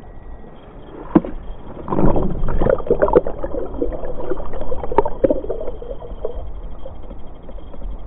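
Remote control bait boat's small electric motor running with a thin steady high whine, switched on about half a second in and off near the end. Water splashes and sloshes against the hull, with scattered knocks, busiest in the middle.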